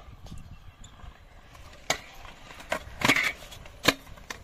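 Stunt scooter knocking and clattering on the skatepark surface: four sharp clacks over a low rolling rumble, the longest and loudest about three seconds in.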